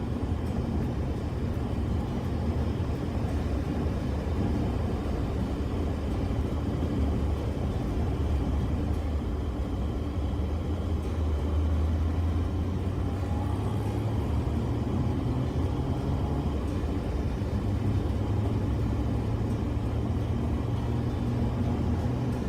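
A car driving at a steady pace: a continuous low engine hum and road rumble.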